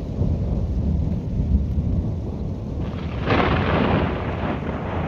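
Thunder rumbling low and continuously, with a louder, hissier burst swelling up about three seconds in.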